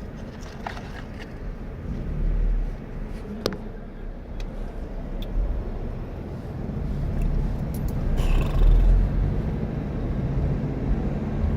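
Car driving: steady engine and road rumble that swells about eight seconds in, with one sharp click about three and a half seconds in.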